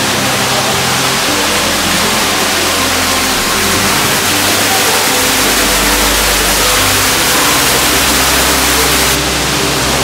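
Water falling from the cave rock and splashing into a pool inside a limestone cave, a loud, steady rush.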